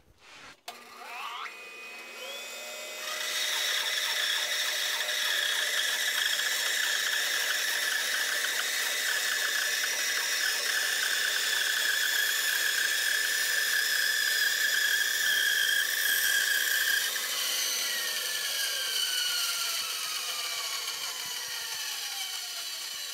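A bandsaw starts up about half a second in and spins up to a steady whine over a couple of seconds while it resaws a thin slice off a board. Some seventeen seconds in it is switched off, and the whine falls steadily in pitch as the blade coasts down.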